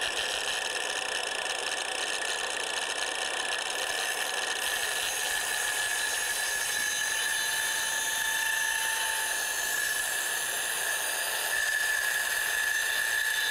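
Small circular trim saw running steadily as it cuts across a wooden board, a steady high whine over the noise of the blade in the wood.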